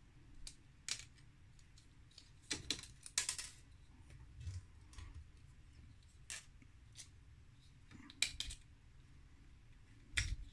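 Faint, scattered clicks and taps of a screwdriver and small plastic parts as the 3D printer's plastic blower fan is unscrewed and pulled off its bracket.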